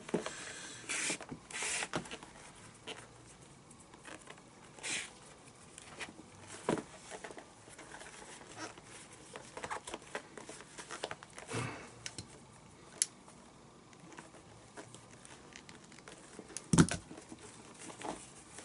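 A glove lace being threaded and pulled through the fingertip holes of a leather baseball glove: scattered rustling and rubbing of lace against leather as the glove is handled, with one louder thump near the end.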